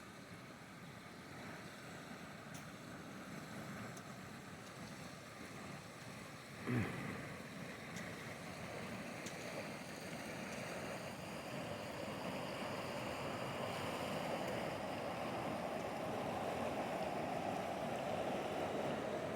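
Rushing water of a rain-swollen river, a steady rush that grows louder through the second half, with a brief low thump about seven seconds in.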